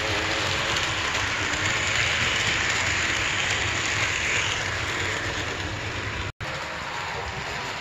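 Varney HO scale Northern steam locomotive and its passenger cars running on model track: a steady rushing whir of the small motor and metal wheels on the rails. The sound cuts out for a split second about six seconds in.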